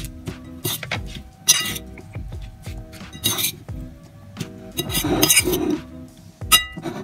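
A metal fork clinking and scraping against a plate while a salad is tossed: short scrapes every second or so, with a longer run of scraping about five seconds in. Background music plays underneath.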